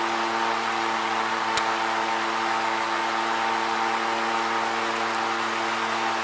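Home-built 12 V cooler running, its small DC motors giving a steady hum with several tones over a steady hiss.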